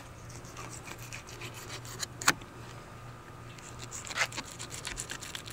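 Fillet knife cutting through a tripletail along its backbone: a run of short scraping, rasping strokes against bone and tough scales, with a sharper click about two seconds in and another a little after four seconds.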